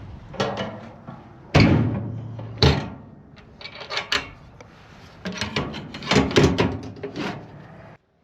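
Metal clanks and rattles of a sheep grain feeder being handled: a loud bang, another about a second later, then a run of rattling knocks.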